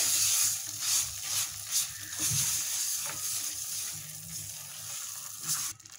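Khava and sugar sizzling in a hot nonstick kadhai while being stirred and scraped with a spatula, as the sugar is mixed into the melted khava. The sizzle stops abruptly near the end.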